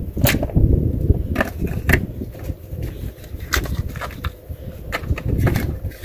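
Batteries being fitted into a GPS tracker's plastic case, giving a handful of sharp clicks, over wind rumbling on the microphone.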